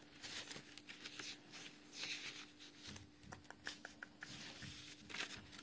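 Soft rustling of paper and plastic packaging being handled and moved about on a table, with a few light clicks and taps in the middle, as someone searches through the items. A faint steady hum sits underneath.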